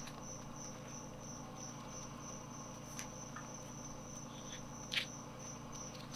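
A cricket chirping steadily, about three short high chirps a second. Two brief rustles of paper pages being flipped come in about three and five seconds in, the second the louder.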